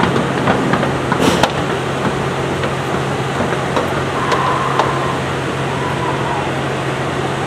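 A steady machine hum with a low drone, over which hooves knock and click on a wooden loading ramp, a few sharp clicks about a second in and scattered ones later.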